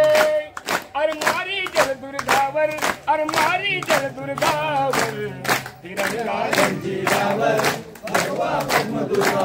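Powada, a Marathi martial folk ballad, sung by several voices together over steady drum strokes about four a second.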